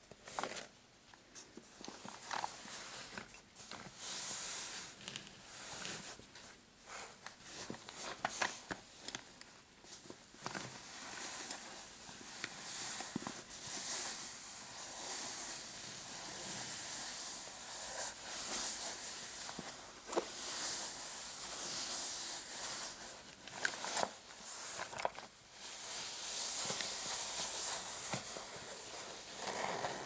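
Fingernails scratching and tapping on fabric-covered objects, a soft floral pouch and a framed clutch purse: a steady scratchy rustle broken by many small sharp taps and scrapes.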